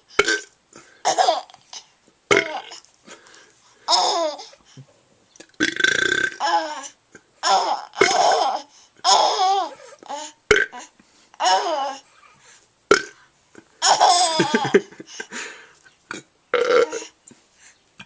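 An adult burping loudly over and over, and a baby laughing in short bursts in reply, the two trading back and forth about once a second.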